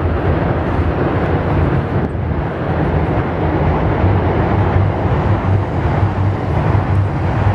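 Loud steady outdoor rush and low rumble of wind on the microphone mixed with road traffic, with a car passing on the road in the second half.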